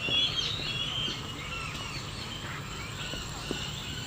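Many birds chirping and calling at once: a dense chatter of short, high calls, busiest and loudest in the first second.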